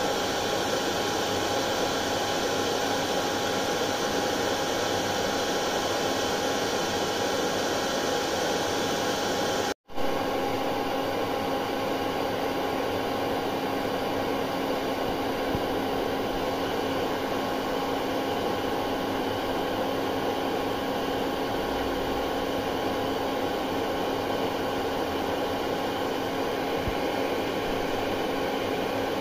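Hair dryer blowing steadily: an even rush of air over a constant motor hum. The sound cuts out for a split second about ten seconds in, then carries on with a slightly changed hum.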